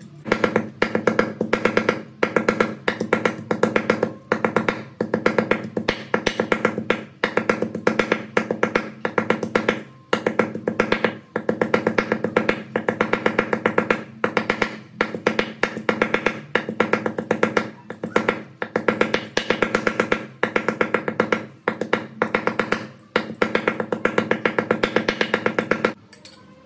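Cleaver chopping raw pork on a wooden cutting board to mince it: fast, loud runs of chops, many to the second, broken by short pauses.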